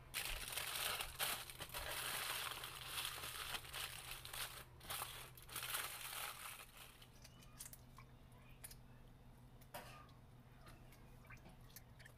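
Aluminum foil being crumpled and folded by hand, a dense crinkling that is loudest for the first six or seven seconds, then softer scattered rustles and clicks.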